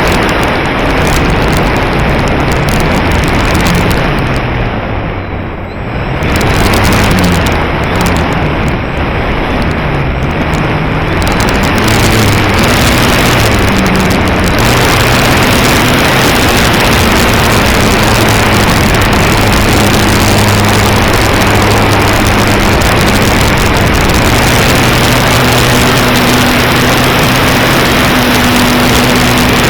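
Heavy wind noise on the microphone over a droning motor whose pitch wavers up and down, then holds fairly steady from about twelve seconds in.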